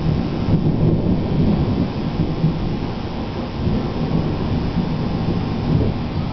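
Thunder from a monsoon thunderstorm: a long, low, continuous rumble with no sharp crack.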